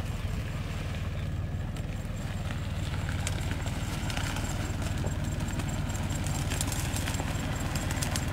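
A 4x4 SUV's engine running with a steady low rumble as the vehicle crawls slowly through tall grass. Many short ticks and crackles, from grass stalks brushing the body and being crushed under the tyres, thicken from a few seconds in.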